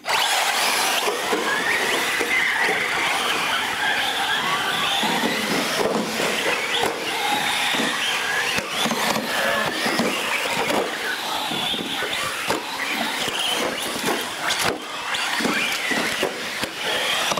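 A pack of radio-controlled UTV race cars launching all at once and racing on a concrete floor: a dense, loud mix of many small motors whining and tyres squealing, with scattered clicks and knocks.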